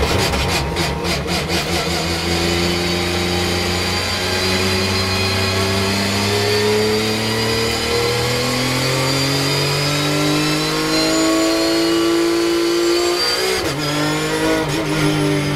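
Porsche 911 GT3 Cup race car's flat-six engine heard from inside the cockpit: crackling and popping as the car brakes and downshifts, then accelerating hard in first gear with a steadily rising pitch. Near the end there is an upshift to second, a sudden drop in pitch, before it climbs again.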